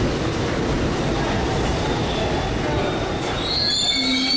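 R68 subway train pulling into the station, its wheels and cars rumbling. About three seconds in, a high squeal of several steady tones sets in as it slows.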